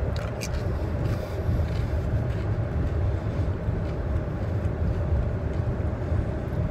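Steady road and engine rumble inside a moving car's cabin. Near the start come a few short, crisp crunches of a ridged potato chip being bitten.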